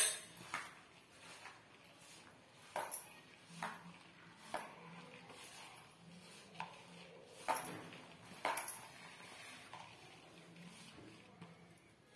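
Dough being mixed by hand in a plastic bowl: scattered light taps and clinks of bangles and fingers against the bowl, a dozen or so irregular strikes, the loudest right at the start.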